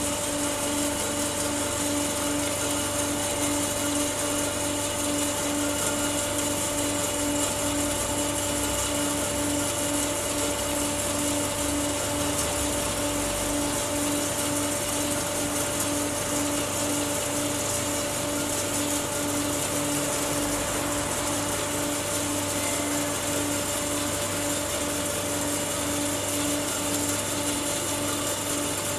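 CNC metal-cutting band saw (332 CNC) running under power with no cut: a steady machine hum with a tone that pulses regularly about twice a second.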